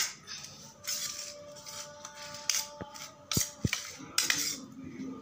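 A metal spoon scraping and clinking against a glass dish in irregular strokes while stirring chopped boiled eggs with spices.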